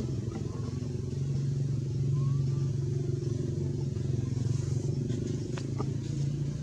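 A vehicle engine running steadily with a low hum. Two faint short chirps come about half a second and two seconds in, and a sharp click a little before six seconds.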